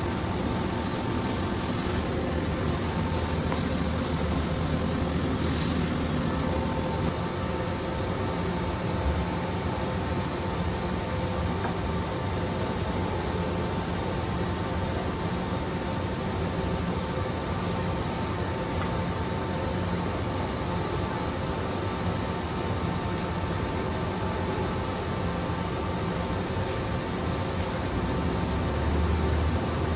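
Steady machinery hum with a constant whine and a low drone, the sound of a large machining center and its pumps running; a faint high-pitched hiss comes in for a few seconds near the start.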